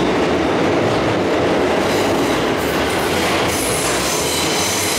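New York City subway car in motion, heard from inside the car: a loud, steady rumble of wheels on rail and running gear, with a thin high wheel squeal coming in over the last second or two.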